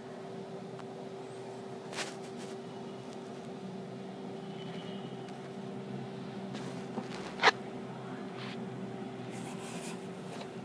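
Steady machine-like background hum with one constant tone running through it. A short click comes about two seconds in, and a sharp, louder click a little past halfway.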